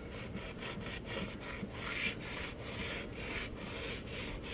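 Sandpaper rubbed by hand on a painted wooden desk, in quick back-and-forth strokes about three a second, scuffing through the paint to distress it.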